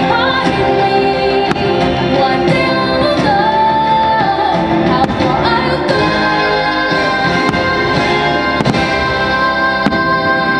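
The fireworks show's soundtrack, a song with singing over full orchestral-pop backing, with a long held sung note in the second half. A few sharp firework bangs break through the music.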